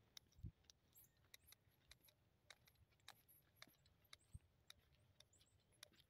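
Near silence, broken by faint, scattered clicks and two brief soft low thumps.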